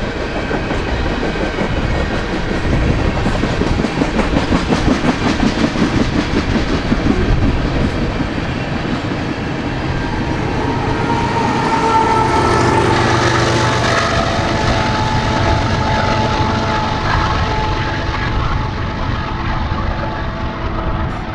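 BNSF freight train rolling past, its wheels clicking rhythmically over the rail joints. About halfway through, a held horn-like tone rises over the rolling.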